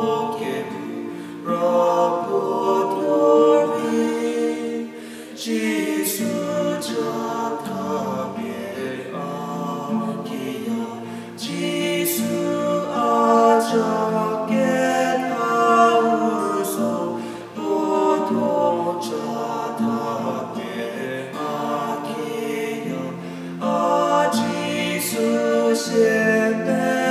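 A woman and a man singing a worship song together in unison, with strummed acoustic guitar accompaniment, phrase after phrase.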